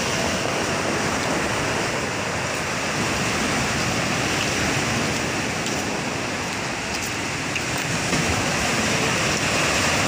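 Sea surf: waves breaking over rocks and washing up a pebble shore, a steady rushing.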